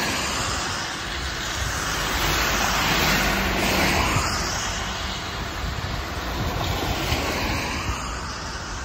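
Isuzu Citiport CNG city bus passing close by on a wet road: engine and tyre hiss swell to a peak about three to four seconds in, then fade as it pulls away, over steady traffic noise.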